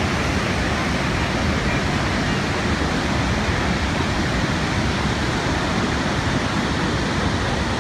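Steady roar of Niagara Falls, the water thundering down into the gorge, with a deep rumble underneath.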